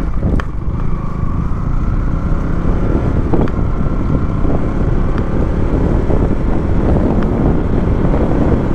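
Motorcycle under way on a highway: steady engine and road noise, with wind rumbling on the microphone.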